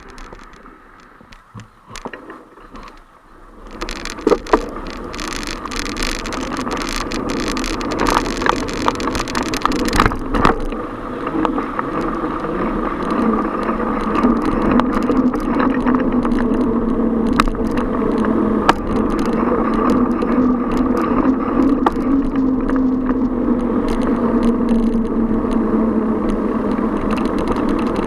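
Riding a bicycle in city traffic: road and traffic noise with frequent clicks and rattles, quieter for the first few seconds and louder from about four seconds in.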